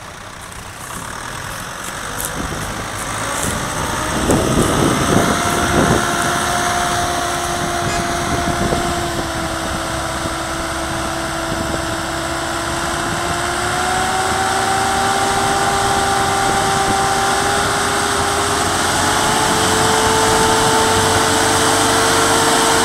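Diesel engines of several farm tractors, the nearest a Başak, running hard under load as they tow a truck stuck in sand. The engine note climbs slowly and steadily in pitch and grows louder, with rougher, louder stretches about five seconds in.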